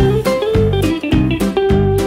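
Background music: a guitar tune over a steady beat.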